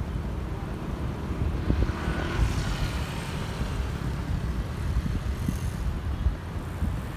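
Wind buffeting the microphone of a camera carried on a moving bicycle, a steady uneven rumble. A motor vehicle passes about two seconds in, swelling and fading over a second or so.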